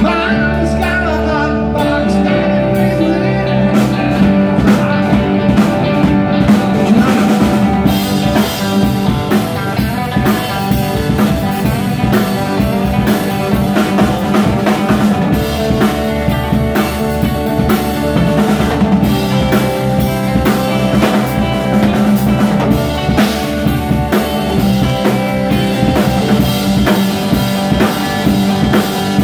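Live rock band playing: electric guitars, electric bass and a drum kit, with a steady drum beat.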